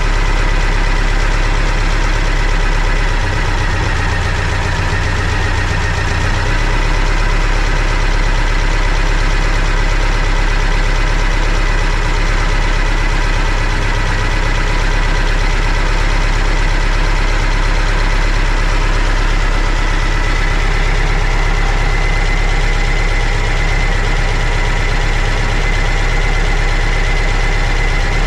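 VW Bus engine on dual Weber 48 IDA carburettors idling steadily while its idle mixture screws are turned for the tune, with a thin, steady whine running over the engine sound.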